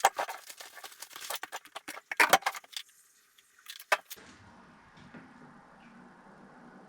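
Small hard objects being handled: a run of clicks and rattles with two or three sharper knocks over the first four seconds, then only a faint steady hum.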